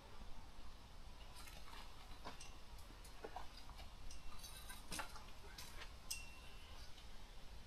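Faint scattered clicks and light knocks from camp gear being handled at the picnic table, with a brief high squeak about six seconds in.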